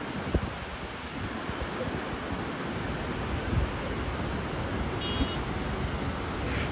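Steady rush of a fast, shallow mountain river running over rocks, with wind buffeting the microphone in a few low thumps.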